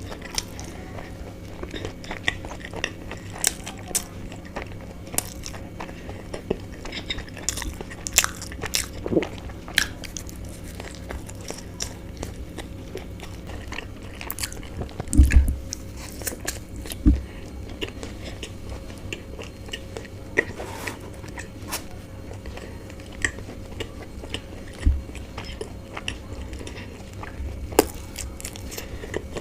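Close-miked eating of chicken bao buns: biting and chewing with many small mouth clicks, and a few dull thumps about halfway through and again later.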